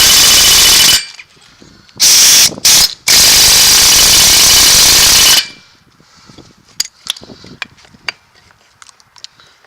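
Power tool hammering in loud bursts while U-joints are being driven out of a truck drive shaft: a long run that stops about a second in, two short bursts around two and a half seconds, and a longer burst to about five and a half seconds. Then light metal taps and clinks.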